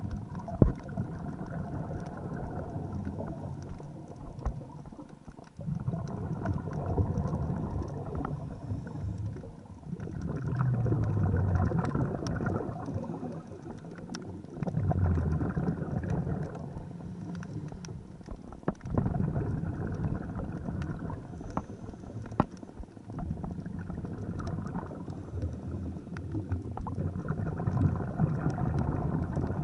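Underwater breathing of a scuba diver: exhaled bubbles rumble and gurgle in bursts every four or five seconds, with scattered clicks and a sharp knock about a second in.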